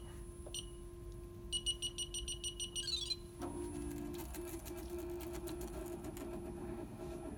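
Embroidery machine running a trace of the design outline. Its control panel gives two short beeps, then a quick run of rapid beeps. About three and a half seconds in, the hoop-drive motors start a steady hum as the hoop moves around the outline.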